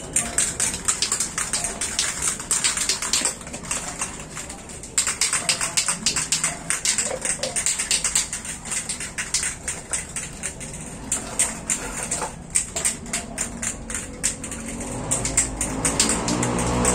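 Rapid, irregular clicking and rattling, several clicks a second, from a spray paint can being shaken to mix the paint. A low rumble builds over the last couple of seconds.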